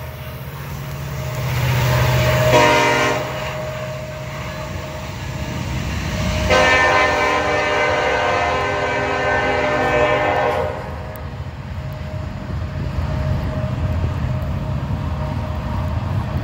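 Freight locomotive air horn from the EMD SD70ACe lead units: a short blast about two and a half seconds in, then a long blast of about four seconds, the close of the long-long-short-long grade-crossing signal. Beneath it is the steady rumble of the diesels and the tank cars rolling by.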